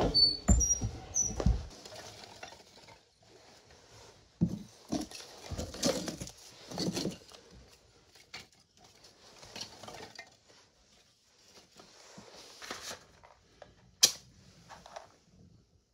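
Cast iron woodstove doors being unlatched and swung open, with knocks and a few short high squeaks from the hinges, then sticks of kindling clattering as they are laid in the firebox. Near the end, one sharp strike of a match.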